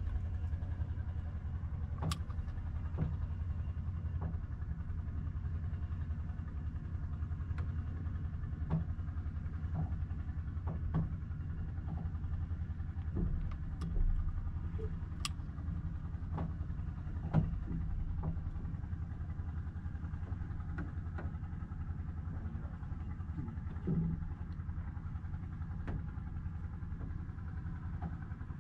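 Small wooden fishing boat's engine running steadily with a low hum, with occasional short knocks and clicks over it.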